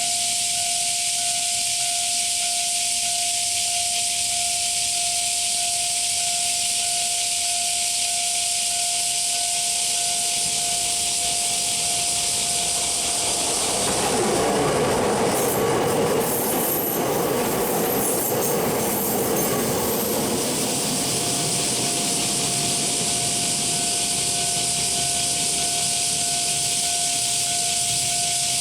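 Japanese level-crossing warning bell ringing over a steady hiss, while a train passes through the crossing from about halfway through; for some seconds its wheel and running noise drowns the bell, which is heard again after the train has gone.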